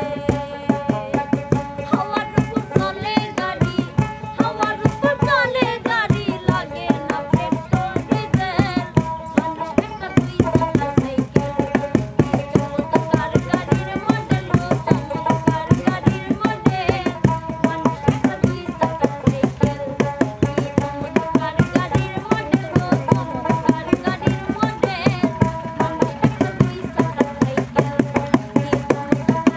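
Bengali folk song music: a melody over a steady hand-drum beat.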